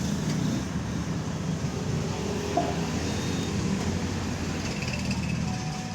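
Steady low background rumble, like distant road traffic, with no distinct events.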